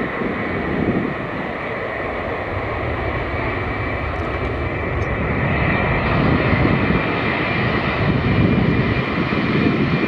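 Four turbofan engines of a Boeing 747-400F freighter at takeoff thrust during the takeoff roll: steady, loud jet noise with a pulsing low rumble and a whine on top, growing louder about six seconds in.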